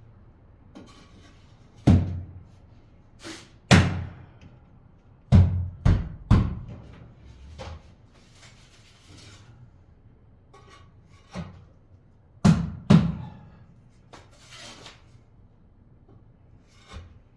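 Irregular sharp knocks and thuds from tiling work, about eight strikes, some in quick pairs or threes, with brief scraping noise between them.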